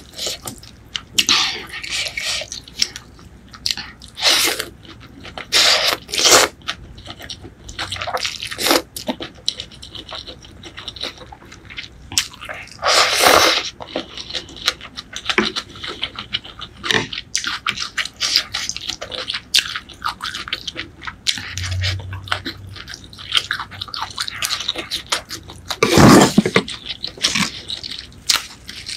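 Close-miked eating of Thai pork noodle soup: slurping rice noodles and chewing, a string of irregular wet mouth sounds with a longer slurp about thirteen seconds in.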